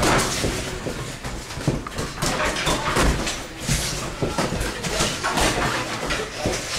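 Boxers sparring in a ring: irregular knocks and thuds of gloves landing and footwork, over gym background noise.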